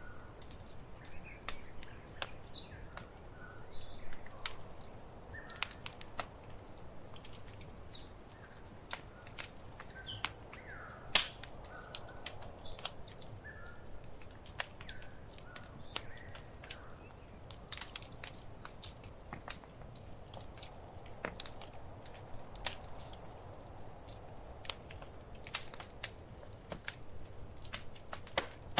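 Wood fire crackling in a fireplace: irregular sharp pops and snaps over a low steady rumble of flame, with one louder pop about eleven seconds in.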